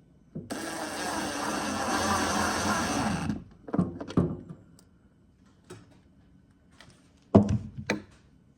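Workbench with a built-in toolbox being slid and closed: a scraping slide lasting about three seconds, then a few knocks and two loud wooden thunks near the end.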